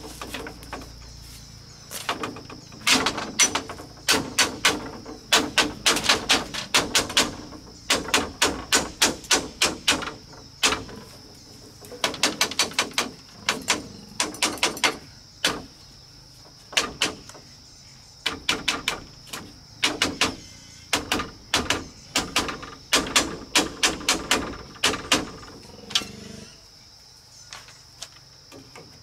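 Split-bamboo strips clattering and knocking against the bamboo slats of a coop wall as they are woven in by hand, in quick runs of clicks with short pauses between. A steady high insect drone runs underneath.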